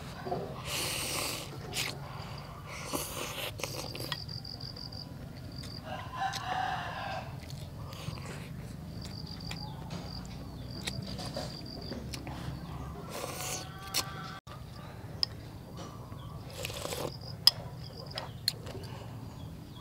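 A rooster crowing in the background, mixed with the close slurping and eating of noodle soup, which comes in short hissy bursts.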